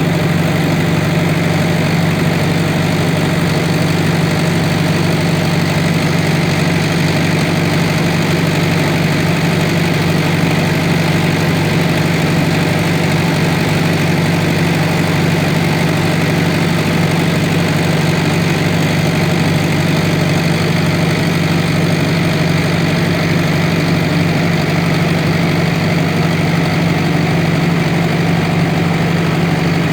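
Engine running steadily at idle: a constant low hum that holds the same speed throughout.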